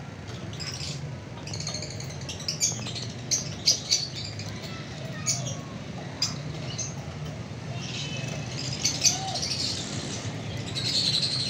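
Lovebirds chirping: short, high-pitched calls in quick clusters, busiest about two to four seconds in and again near the end, over a steady low hum.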